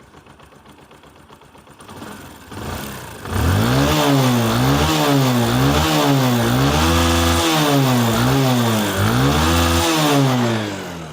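Motorcycle engine idling, then from about three seconds in revved up and down several times before dropping back near the end. The freshly rebuilt engine runs silent and smooth, with no knocking.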